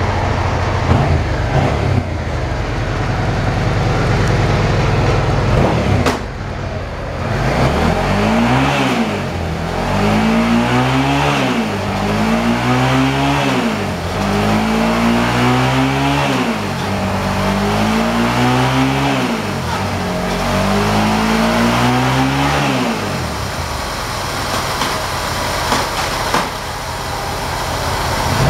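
A 2003 Suzuki SV650's 645 cc V-twin engine idles. About eight seconds in it is revved up and down about seven times, each rev rising and falling over roughly two seconds, and then it settles back to idle near the end.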